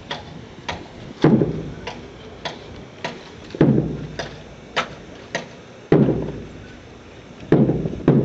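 A drill squad's rifles and boots striking in unison during a silent rifle drill. Sharp knocks come in a steady beat somewhat under two a second, and about every fourth one is a heavier thud. The beat pauses briefly about six seconds in and resumes with two heavy thuds near the end.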